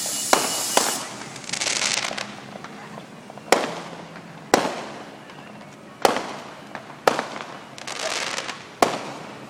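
Consumer fireworks going off: about seven sharp bangs at uneven gaps, each with a short echoing tail, with bursts of crackling in between.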